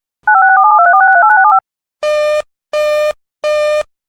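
Electronic alert tones opening an emergency alert broadcast. First comes a loud run of rapidly changing two-note touch-tone-like beeps lasting just over a second. Then a steady series of short, identical buzzy beeps follows, about one every three-quarters of a second.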